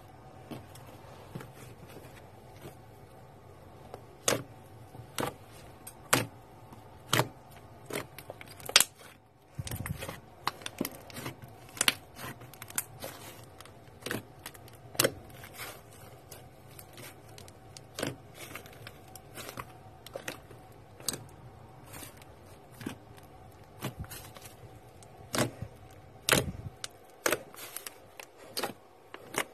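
Thick purple slime being pressed, poked and squeezed by fingers, giving sharp clicks and pops. They come about once a second at first, then quicker and softer, with a couple of dull low thumps as the slime is pushed down.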